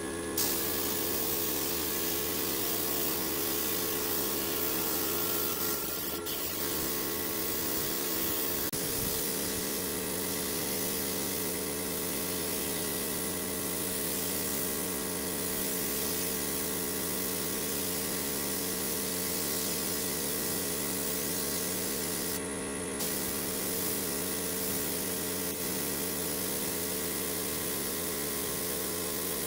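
Gravity-feed pneumatic spray gun hissing steadily as it sprays wood finish, over a steady low hum. The hiss breaks off briefly about three-quarters of the way through.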